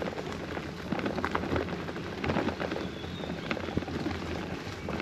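Riding noise on a touring bicycle: tyres rolling along the path with frequent crackles and rattles over a steady low rumble of wind on the microphone.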